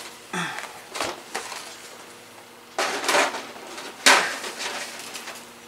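Stiff cardboard game token sheets being handled and set down on a cloth-covered table: a few dull slaps and sliding rustles, the loudest about three and four seconds in.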